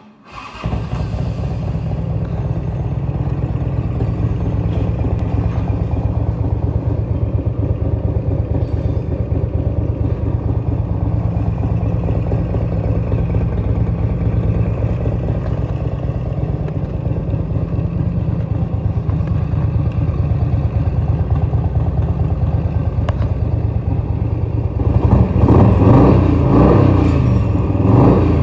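1992 Harley-Davidson Electra Glide's 1340 cc Evolution V-twin running steadily at idle. Near the end it is revved a few times, rising and falling in pitch.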